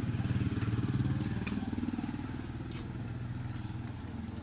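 Small motorcycle engine of a passing tricycle with sidecar, running with a rapid pulsing note. It is loudest about a second in and slowly fades after.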